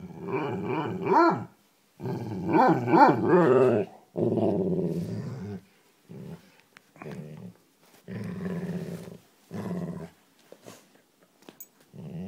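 A dog grumbling and growling in drawn-out vocal bursts whose pitch wavers up and down, loudest over the first four seconds. These are followed by shorter, quieter grumbles about a second apart.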